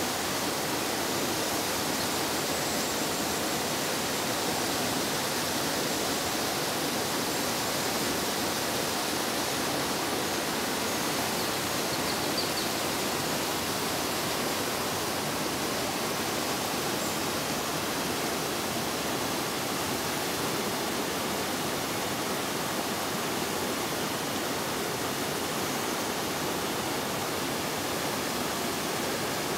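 Steady rush of water from a small waterfall pouring into a pool, an even hiss that does not change.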